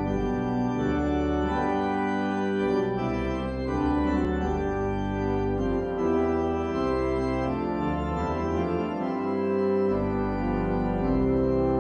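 Church organ playing a slow hymn introduction on two manuals, with held chords over a bass line that changes every couple of seconds.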